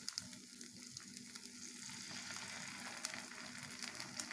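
Rava oothappam batter sizzling in oil on a hot non-stick pan while it is spread with a steel ladle, with a few light clicks of the ladle. The sizzle grows a little louder about two seconds in.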